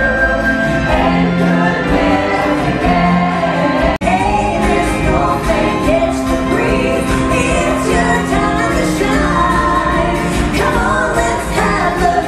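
Live folk band playing a Christmas song: women's voices singing in harmony over acoustic guitars and piano. The sound breaks off for an instant about four seconds in, then carries on.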